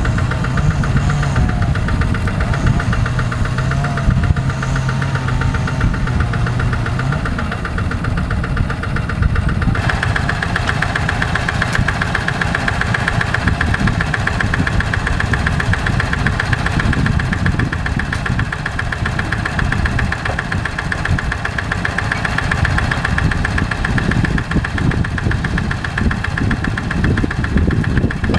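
A tractor's engine runs steadily and loudly in a rice paddy, with a knocking rhythm typical of a diesel. About ten seconds in its note changes and turns brighter.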